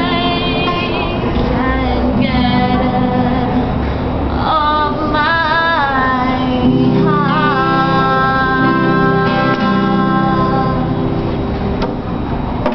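A woman singing to her own strummed acoustic guitar, holding one long note for about four seconds past the middle.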